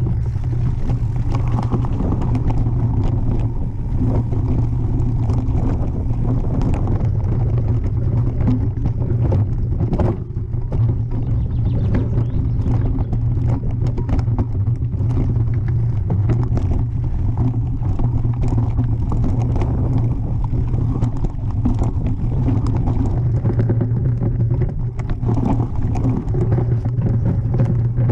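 Mountain bike descending a rocky singletrack, heard through a camera mounted on the bike: a steady low rumble of vibration with frequent short clicks and rattles as the tyres run over stones.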